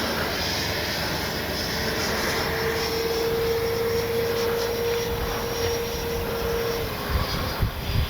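Electric ducted fan of a Freewing BAE Hawk T1 70 mm RC jet whining in flight, a steady tone over rushing air that fades out about seven seconds in. Wind gusts rumble on the microphone near the end.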